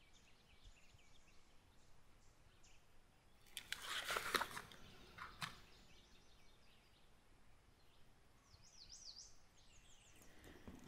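Faint bird chirps over quiet ambience, with a short rustle and a few sharp clicks about four seconds in and another click a second later; more chirps near the end.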